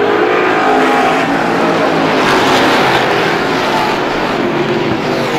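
A pack of Strictly Stock short-track race cars running hard through a turn, many engines together. The sound swells briefly a little past two seconds in.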